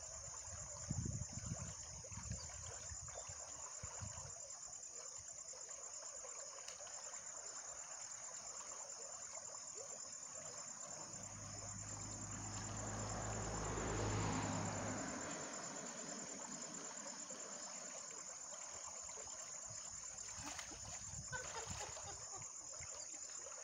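Steady high chirring of insects over a faint trickle of stream water. About eleven seconds in, a low hum swells and fades away over about four seconds, and there are a few faint splashes from wading near the start and near the end.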